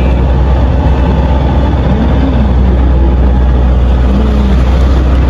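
Strong wind buffeting the microphone: a loud, steady rumble with a rushing hiss over it.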